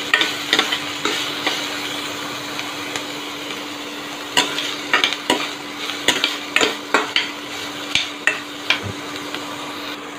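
Chopped onions and green chillies sizzling in oil in a steel kadai while being stirred, the spatula scraping and clicking against the pan at irregular moments, most often in the second half.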